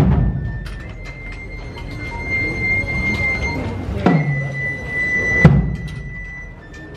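Procession band playing a funeral march: heavy drum strikes with a deep booming tail, three times, the last two about a second and a half apart, under a long high held note.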